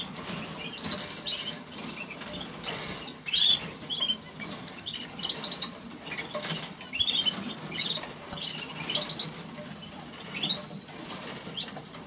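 Caged canaries chirping with short high calls and brief trills, one every second or so. Light rustling and wing flutters come from birds moving about their cages.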